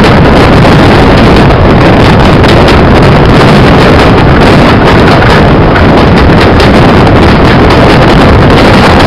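Loud, steady wind rush buffeting the microphone of a camera held out of the window of a moving train.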